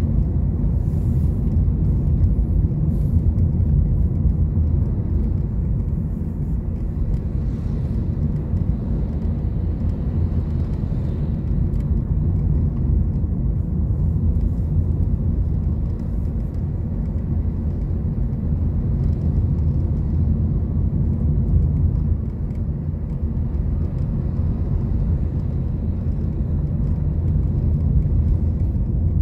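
Road traffic heard from a moving motorcycle: a steady low rumble of engines and road noise, with passing cars and motorbikes.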